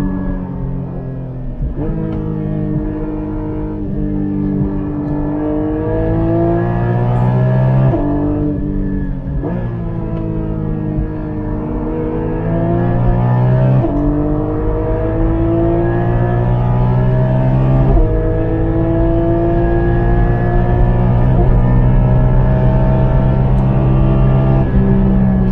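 Porsche 718 Cayman GT4 MR's naturally aspirated 4.0-litre flat-six accelerating hard. Its pitch climbs and drops sharply at several quick PDK gearshifts, then rises slowly through one long pull.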